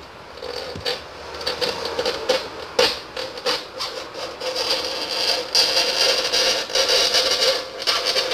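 Gloved hands rubbing and scraping at a small piece of glass: an irregular, scratchy scraping noise with a few sharp clicks, growing louder about halfway through.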